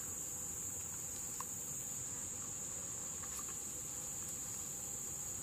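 Insects singing in a steady, unbroken high-pitched drone.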